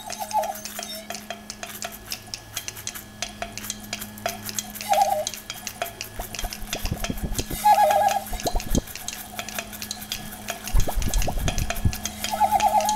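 A palette knife scraping and tapping oil paint onto a canvas: many small clicks and scrapes over a steady low hum. A short warbling tone sounds three times, and dull low thumps come in the second half.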